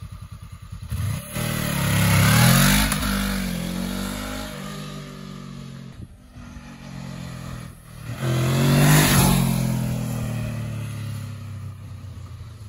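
Honda CB500F motorcycle's parallel-twin engine accelerating past, twice, each pass swelling to loud with a gliding pitch and then fading as the bike rides away.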